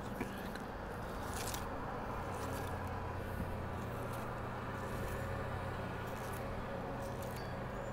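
Fillet knife slicing a large king mackerel along its backbone: a series of short, sharp scraping strokes, one every second or so. Under it runs a steady low machine hum.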